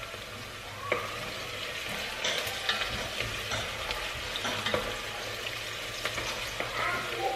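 Food sizzling in hot oil in a stainless steel pot while a wooden spoon stirs it, knocking and scraping against the pot's side and bottom from about a second in.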